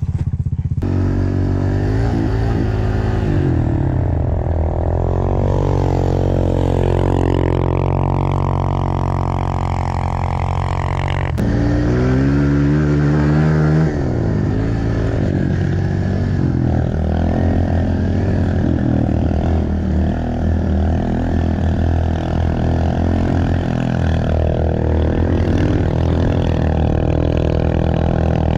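Pit bike engine running and revving up and down as the bike is ridden, its pitch rising and falling repeatedly. The sound changes abruptly about eleven seconds in.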